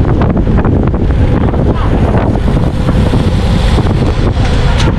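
Heavy wind buffeting on the microphone of a camera on a road bike riding at race speed in a group: a loud, steady roar with a few sharp clicks, one stronger near the end.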